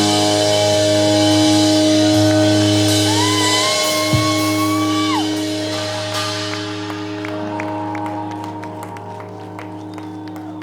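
Live rock band letting its final chord ring out and slowly fade at the end of a song, with a high note that slides up, holds and drops away a few seconds in, and a single drum hit about four seconds in.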